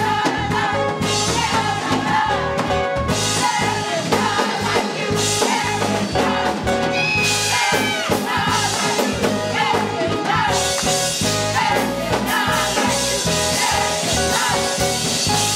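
Gospel choir singing in full voice to a keyboard accompaniment with a steady bass line.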